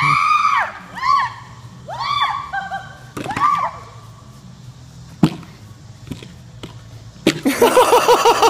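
A woman's short high cries, each rising and falling, about one a second for four cries. Then a single sharp knock, and near the end loud, fast laughter.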